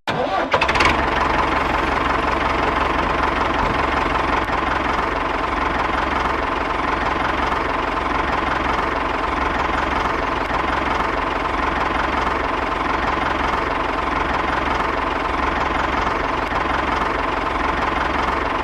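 A motor running steadily with a constant whine, starting abruptly and holding an even level throughout.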